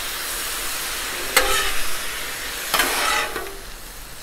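Shrimp, broccoli and rice-noodle stir-fry, just sauced, sizzling on a 36-inch Blackstone griddle's steel top while two metal spatulas toss it. There are two sharp scrapes of spatula on steel, about a second and a half in and again near three seconds.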